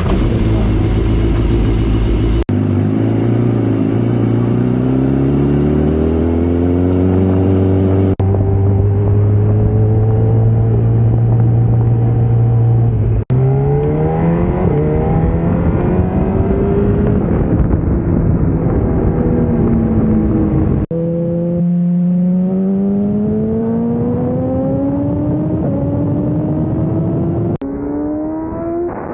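BMW S1000RR's inline-four engine, first running steadily, then accelerating hard with its pitch climbing again and again and dropping at each upshift. The sound changes abruptly several times where the footage is cut between shots.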